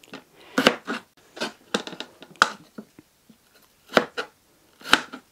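Chef's knife slicing through raw potatoes and knocking down onto a plastic cutting board: a run of uneven sharp knocks, with a short pause about three seconds in.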